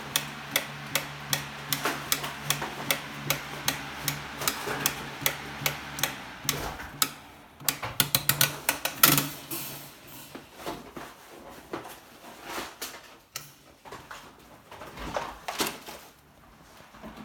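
A 360-degree rotating fan runs with a low hum and a sharp click repeating about two and a half times a second, the clicking fault of the fan. About halfway through the clicks crowd together and the hum stops, leaving scattered, irregular clicks.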